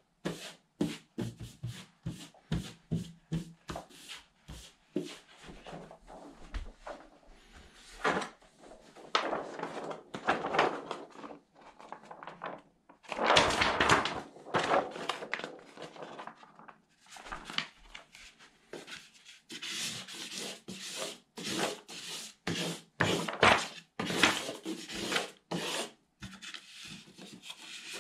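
Hands rubbing and smoothing a wall sticker and its paper sheet against a painted wall in many quick strokes. About halfway through there is a longer stretch of paper rustling and rubbing. Near the end a small plastic squeegee rubs over the sheet.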